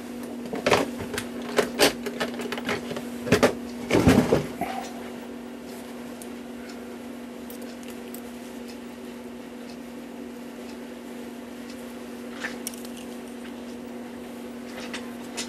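A run of sharp clicks and knocks in the first few seconds as small tools and a plastic case are handled on a workbench, then only a steady hum for the rest.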